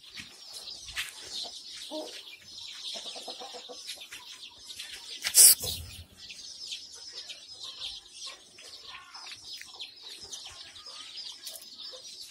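A flock of young Kadaknath and desi chicks peeping and chirping constantly in high, overlapping calls. A single loud knock about five and a half seconds in.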